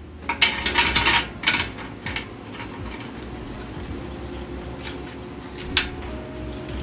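Kitchenware clattering: a quick run of sharp knocks of dishes or utensils in the first two seconds, then one sharp click near six seconds.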